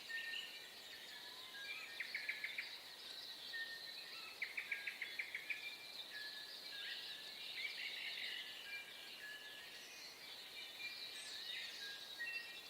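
Dawn chorus: several birds calling and singing over one another, with two quick runs of rapidly repeated notes about two and four and a half seconds in.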